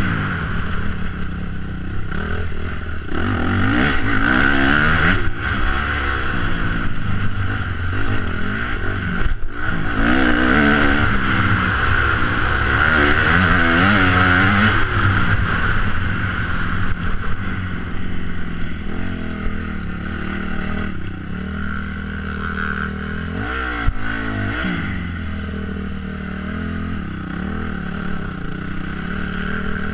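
Motocross bike engine heard from an onboard camera close to it, revving up and dropping back again and again as the rider works through the gears around the track. In the last third it eases off to a quieter, steadier running note, with a brief rev about two thirds of the way in, as the bike slows.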